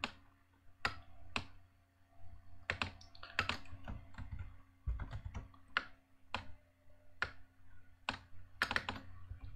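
Scattered computer keystrokes and mouse clicks, irregular and fairly quiet, a few coming in quick clusters.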